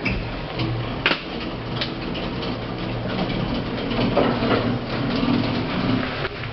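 Otis 2000 VF lift machinery running: a steady low hum with scattered clicks and knocks.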